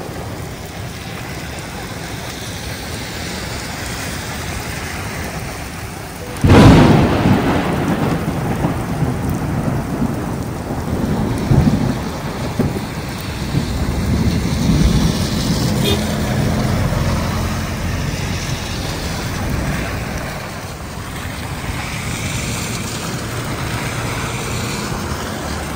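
Heavy rain falling steadily, heard through an open car window. About six seconds in, a sudden loud clap of thunder breaks in and rumbles on, fading unevenly over several seconds.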